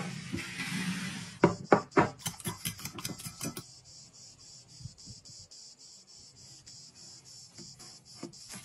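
Hand food preparation: a rough scraping for the first second or so, then several sharp knocks and clicks in quick succession, then soft rubbing as rice balls are rolled in flour and breadcrumbs in glass bowls.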